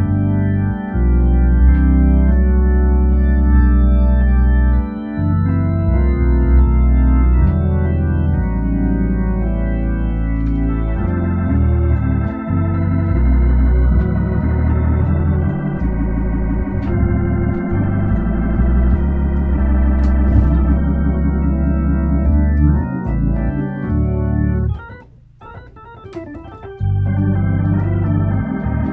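Hammond A100 organ played through a Leslie Model 45 speaker: sustained chords in the key of G over pedal bass notes, changing every second or two. There is a brief break about 25 seconds in before the chords resume.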